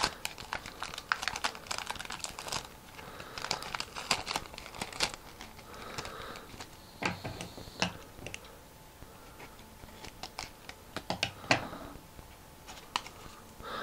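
Wide clear adhesive tape being handled and pressed onto a folded paper boat: the tape crackles and the paper rustles in quick clusters, dense for the first few seconds, then in scattered bursts.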